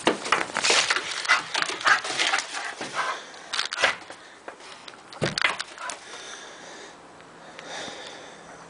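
Bull terrier breathing hard and sniffing in rapid, noisy bursts through the first three seconds, then a few single ones, quieter from about six seconds in.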